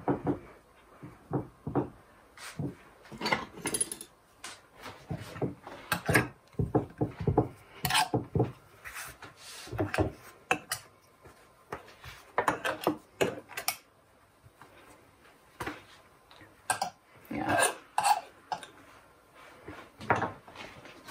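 A knife clicking and scraping against the rim of a ceramic pie dish as the overhanging pie dough is trimmed, with the dish knocking on a wooden counter. Irregular short taps and scrapes throughout.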